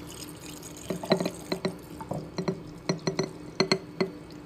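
Milk being poured into a glass jar packed with oats and fruit, making a quick irregular run of small glugs and splashes that starts about a second in.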